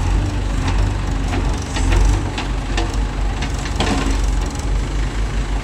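Diesel engine of heavy farm machinery running steadily at low speed, with a series of sharp knocks and clatters spread through it.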